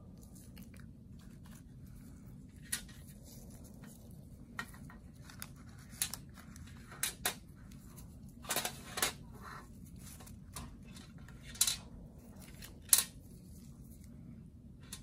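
Scattered sharp clicks and crinkling of paper and plastic medical wrappers and syringes being handled on a steel tray, a dozen or so separate snaps, the loudest a little before the end.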